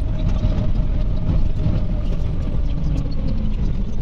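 Cabin noise inside an Iveco Crossway LE 12 bus driving at speed: a steady engine and road rumble, with a faint steady whine over it.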